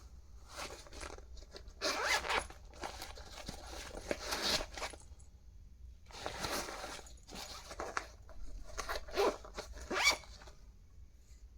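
A zipper being drawn in several separate rasping pulls of about half a second to a second each.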